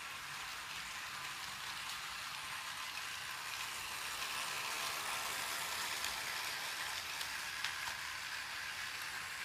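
LEGO train running, its plastic wheels, connecting rods and piston rods giving a steady fine rattling hiss with small clicks, a little louder in the middle.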